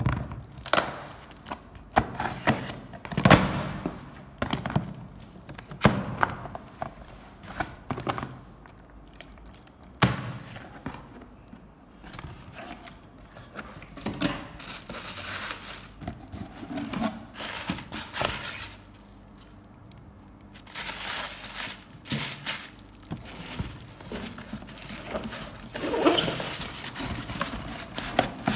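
Clear packing tape ripped off a cardboard carton, then the box opened by hand: cardboard scraping, plastic wrap crinkling and the odd knock against polystyrene packing, in irregular bursts.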